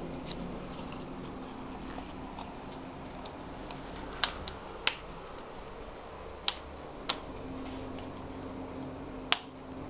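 Sharp plastic clicks, about six spaced irregularly through the second half, as hands press down on an MSI CR400X laptop keyboard, over a steady low hum.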